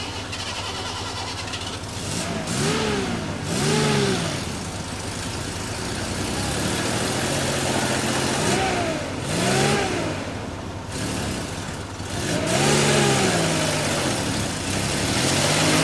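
Ford Bronco II engine revving up and falling back about six times, mostly in quick pairs, as the truck spins its wheels in mud.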